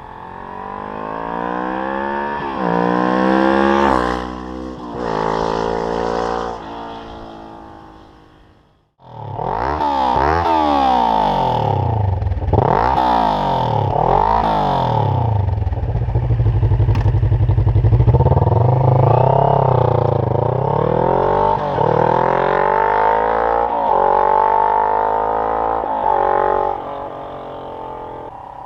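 Kawasaki ER-6n's 649 cc parallel-twin engine accelerating hard through the exhaust, pitch climbing and dropping back again and again as it shifts up through the gears. The sound cuts out briefly about a third of the way in, then the engine picks up again for another run of revs and shifts.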